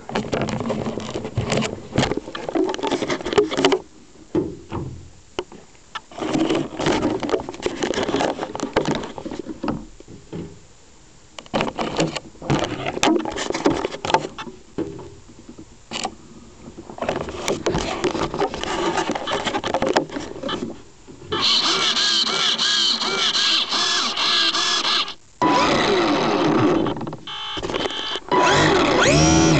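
Electric motor and propeller of a HobbyZone Super Cub RC plane, heard close up through the plane's own onboard camera. It is throttled in short, uneven bursts, then run up for a longer stretch in the last third, its whine rising and falling in pitch with a brief cut-out partway through.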